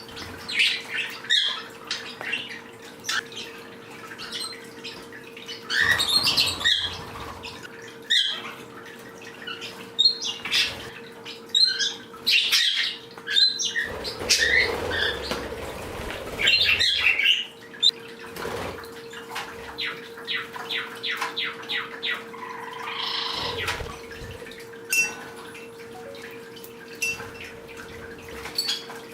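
Several small pet birds chirping and squawking in short calls while they forage, over a steady low hum, with a quick run of ticks about two-thirds of the way through.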